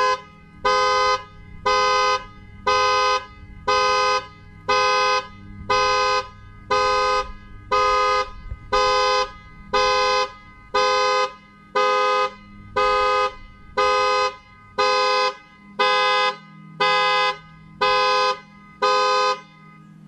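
2010 Chevrolet Impala's horn honking about once a second, each blast about half a second long, as its alarm goes off by itself with no one pressing the panic button. The honking stops near the end. The owner thinks a faulty sensor could be the cause.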